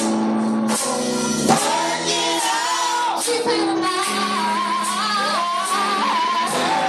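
Women singing a gospel song into microphones over live instrumental accompaniment, with held chords and regular cymbal-like hits.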